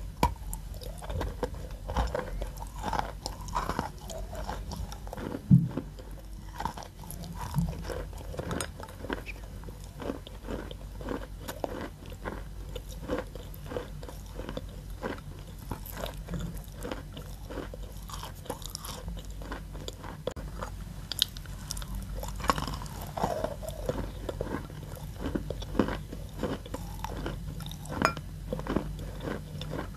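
Close-up biting and chewing of a chunk of chalk: a steady, irregular run of dry, crumbly crunches, with one louder bite about five and a half seconds in.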